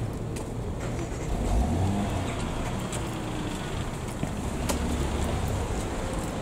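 Car on the move: steady engine and road rumble, with a single sharp click about three-quarters of the way through.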